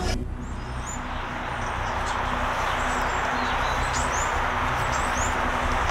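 Outdoor ambience: small birds chirping now and then over a steady rushing hiss and a low hum.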